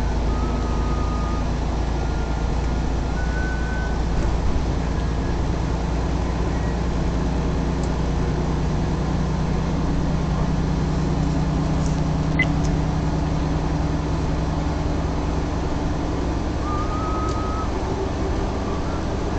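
Steady engine drone and road noise inside a truck cab at highway speed.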